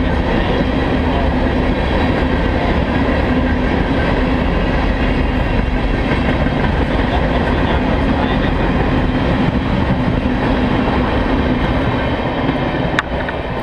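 Loaded tank cars of a freight oil train rolling past at speed, a steady, loud noise of steel wheels on the rails. The sound starts to fade near the end as the last car goes by, with one sharp click just before it drops away.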